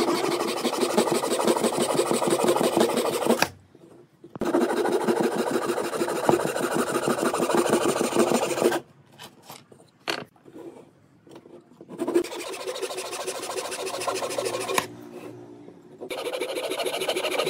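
Handsaw cutting through a small wooden strip with fast, even back-and-forth strokes. It comes in four runs of sawing separated by short pauses, and the longest pause holds a few faint clicks.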